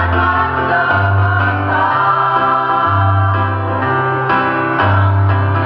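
A women's choir sings together, backed by a low bass accompaniment that steps to a new note about once a second.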